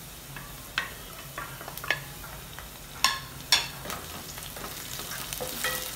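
Sliced onions and green chillies sizzling as they fry in oil in a nonstick kadai. A wooden spatula stirs them, knocking and scraping against the pan several times, with the loudest knocks about three and three and a half seconds in.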